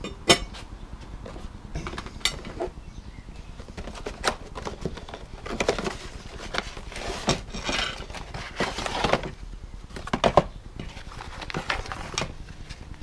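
Small metal clinks and knocks of bicycle cassette sprockets being handled on a table, with rustling and scraping of a cardboard box and plastic tray as a new cassette is unpacked. Sharp clinks come about a third of a second in and again about ten seconds in, and the rustling is heaviest in the middle.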